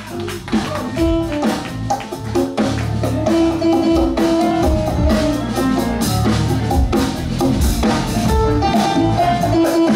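Live band playing a funk tune: electric guitar over drum kit and bass, coming back in at full level after a brief dip at the start.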